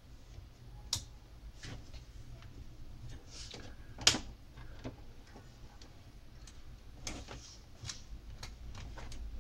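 Scattered clicks and light knocks of hands working among wires and test-lead clips inside an open power amplifier's metal chassis, the loudest knock about four seconds in, over a faint low hum.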